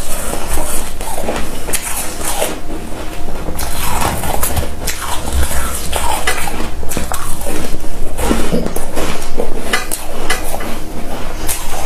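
Close-miked crunching and chewing of freezer frost: ice crystals crackling and crushing between the teeth in a quick, continuous run of small cracks.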